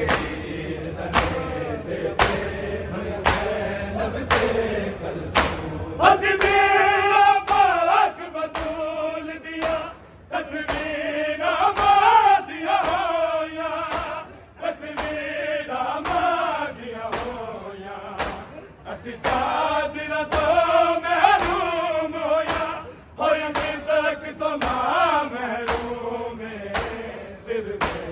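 Men chanting a Punjabi noha (Shia lament) together, kept in time by the steady beat of hands striking chests (matam), about three strikes every two seconds.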